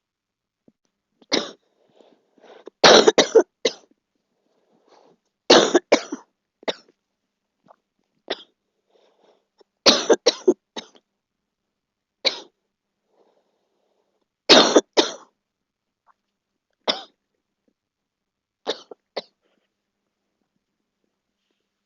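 A girl coughing in repeated bouts: some single coughs and some quick runs of two to four, a second or two of quiet between bouts.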